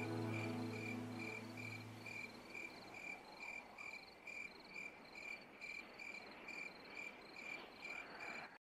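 Cricket chirping in a steady rhythm, about two short chirps a second, setting a night-time mood. A low held note fades away over the first two or three seconds.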